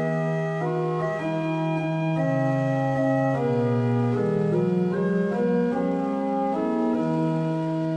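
Organ playing one phrase of a hymn tune in several-part harmony, sustained chords moving every half second or so. The phrase starts right at the beginning and is released at the very end.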